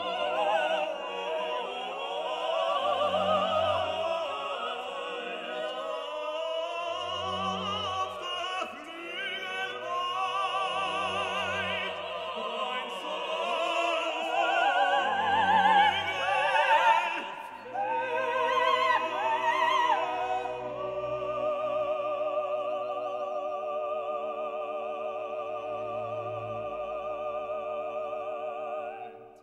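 Background music: an operatic voice singing with wide vibrato over orchestral accompaniment, giving way to long held orchestral chords that fade out at the end.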